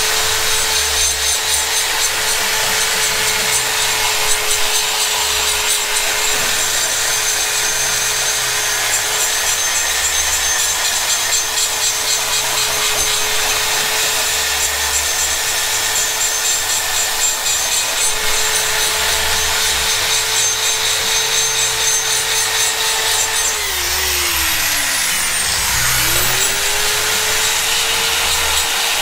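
High-speed die grinder porting an aluminium cylinder head: a steady high whine over a grinding hiss. About four-fifths of the way through it slows, dropping in pitch, then spins back up to speed.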